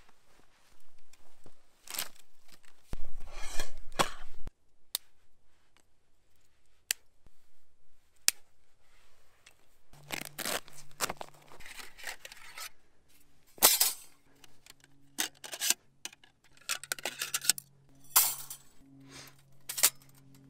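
Dry branches rustling and snapping in the first few seconds, then the stainless steel panels of a Firebox 5-inch folding stove clinking and clicking as they are taken from their pouch and slotted together. Soft background music with held notes comes in about halfway.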